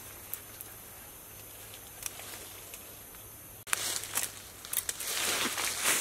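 Leaves and twigs rustling with a few faint crackles as clusters of Burmese grape fruit are handled and picked from the tree. About two-thirds through the level jumps abruptly and the rustling and crackling turn louder and more frequent.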